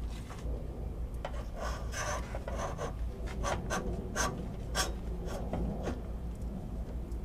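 Stiff insulated #6 electrical wires being pushed through a metal conduit and outlet box by gloved hands, rubbing and scraping against the metal in a series of short strokes.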